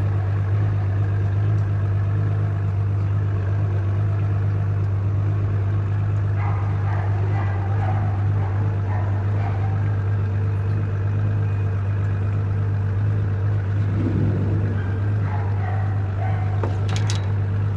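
A large engine running at a steady speed: a deep, unchanging hum that does not rise or fall. Faint small handling noises and a sharp click near the end sit on top of it.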